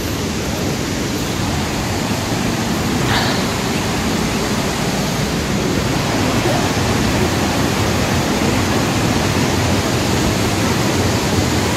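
Steady rushing roar of a fast river tumbling over rapids and small cascades.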